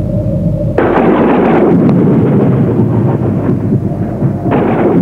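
Two claps of thunder, the first about a second in and the second near the end, each starting suddenly and going on as a long rumble.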